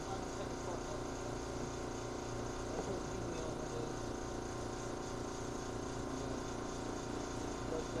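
A steady, even machine hum, like a small motor running, with faint short chirps over it.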